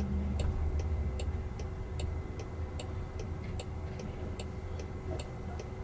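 A car's turn-signal indicator ticking evenly, about twice a second, inside the cabin of a Jaguar I-PACE waiting to turn left, over a steady low rumble of road and traffic noise.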